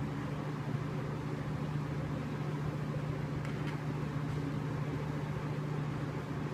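Steady low machine hum with an even hiss, and a faint click or two partway through.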